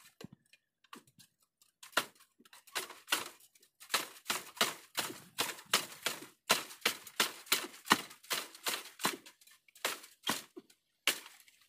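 Dry bamboo twigs and leaves crackling and snapping as they are pulled and broken by hand. The crisp cracks come in a fast, irregular run, sparse at first, then dense from about two seconds in.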